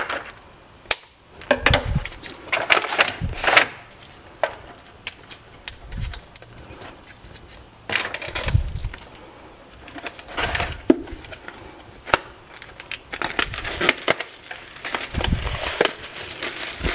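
Paper gift wrapping crinkling and rustling as it is cut and pulled open from around a hardback book, with scattered sharp clicks and a few dull knocks from handling the book and box.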